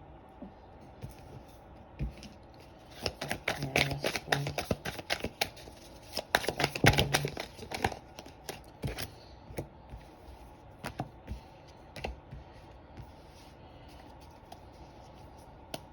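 A deck of tarot cards being shuffled by hand: a dense flurry of quick card clicks and flutters through the middle, thinning to a few single taps later on.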